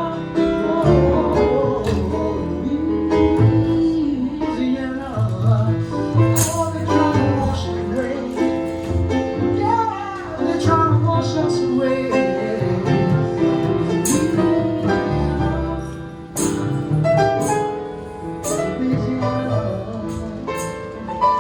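Live band music with guitar and bass, a singing voice at times, and sharp hits now and then.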